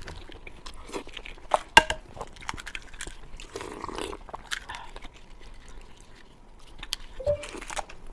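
Close-up eating sounds: a person biting and chewing crunchy food, with irregular crackles and a sharp crunch about two seconds in.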